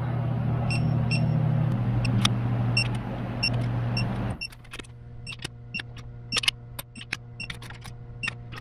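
Digital torque wrench beeping in short pips about twice a second, over a steady low hum, as the engine-block case-half bolts are tightened to the set torque. The hum stops about four seconds in, and scattered ratchet clicks and metal taps follow as the wrench moves from bolt to bolt.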